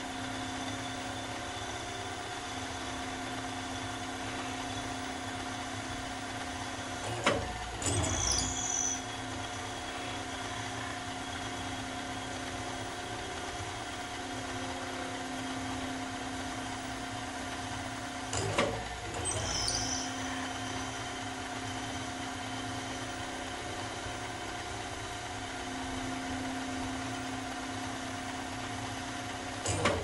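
CNC-converted Grizzly mill-drill (Sieg Super X3) spindle running at about 800 RPM while a lathe tool turns a 6061 aluminum bar: a steady machine hum with several whining tones. Twice, about 7 and 18 seconds in, a sharp clack is followed by a second or two of louder noise, and another clack comes at the very end.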